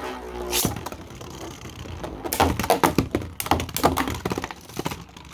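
Two Beyblades, Demon King Shatter and a 3D-printed top with chains called Doomsday, spinning in a plastic stadium: a steady whirr for the first second or so. Then, from about two seconds in, a run of rapid hard clashes as they collide.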